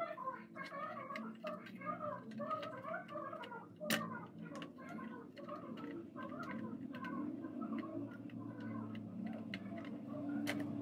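Scattered clicks and light knocks of plastic and metal parts on a game console's mainboard being handled and pressed into place, with one sharp knock about four seconds in. Birds chirp over and over in the background above a low steady hum that grows near the end.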